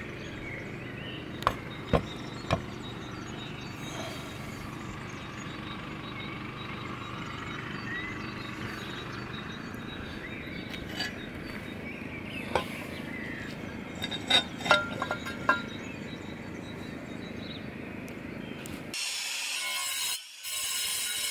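Outdoor background with scattered sharp clicks and knocks as tools and tiles are handled. About nineteen seconds in, a cordless Makita brushless angle grinder with a diamond cutting disc bites into a clay roof tile, a loud, high-pitched grinding that dips briefly twice.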